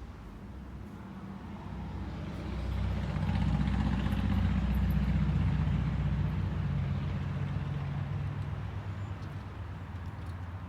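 A motor vehicle's engine passing by: a low hum that grows louder over a couple of seconds, peaks, then slowly fades away.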